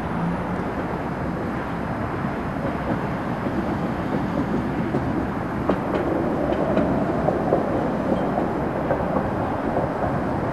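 Tatra T3 tram running along its track, its running noise growing louder about halfway through, with a few sharp clicks near the middle.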